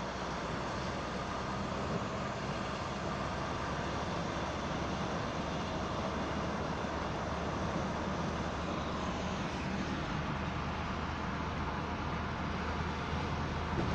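Steady road noise inside a moving car on a motorway: a hiss of tyres and wind with a low, even engine hum.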